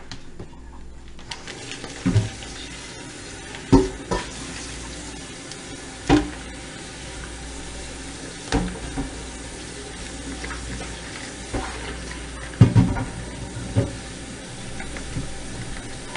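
A kitchen tap running steadily at the sink, with short knocks and clunks at irregular intervals every second or two.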